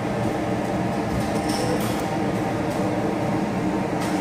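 Steady mechanical drone and hum with a few faint ticks.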